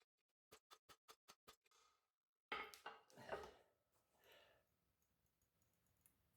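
A quick run of faint metallic taps, about five a second, stopping about a second and a half in, then a couple of brief louder clatters about halfway through.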